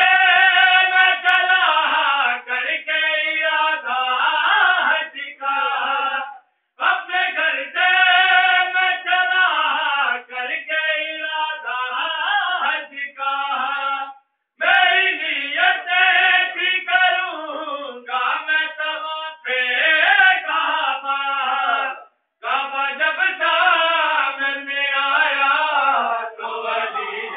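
A group of voices singing a devotional chant together, in long repeated phrases of about eight seconds, each followed by a short pause for breath.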